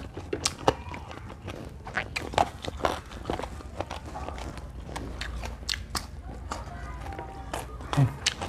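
Close-miked eating of raw lalapan vegetables and salted fish: irregular crisp bites and crunchy chewing, a sharp crunch every fraction of a second.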